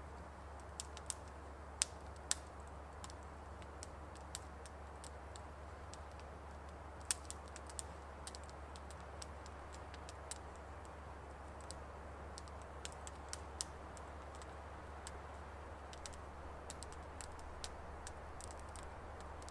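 Wood campfire crackling: sharp, irregular pops and snaps over a faint steady hiss.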